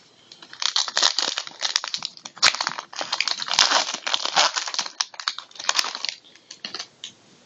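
Trading card pack wrapper crinkling as it is handled and opened, a dense run of irregular crackles that tails off near the end.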